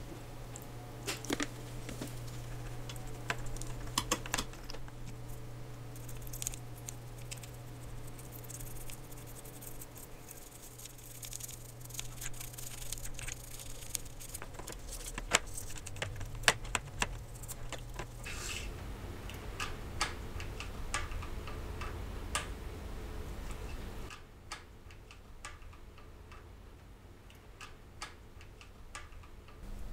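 Small clicks, taps and scratches of hand tools on a watch. A stiff brush scrubs a metal bracelet link in cleaning fluid, over a steady low hum. Near the end, quieter clicks come from tweezers and a screwdriver on the movement.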